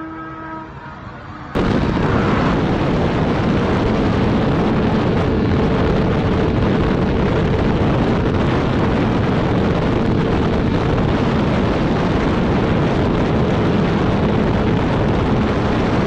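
Suzuki GSX-R1000R inline-four on a Brock's Performance full titanium exhaust: a high engine note fades for about a second and a half. Then it cuts to a loud, steady roar of wind buffeting the microphone over the engine pulling hard in sixth gear at about 175 mph.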